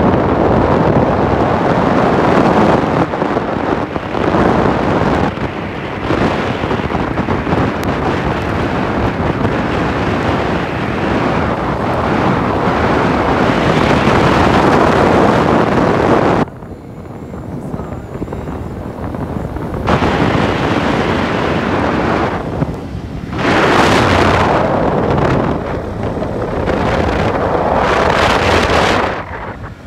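Wind buffeting the microphone of a camera carried in a moving car: a loud, steady rush. It eases for a few seconds past the middle, then swells again twice near the end.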